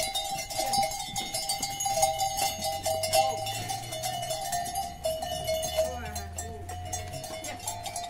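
Bells on a herd of goats clinking and ringing steadily as the goats move about.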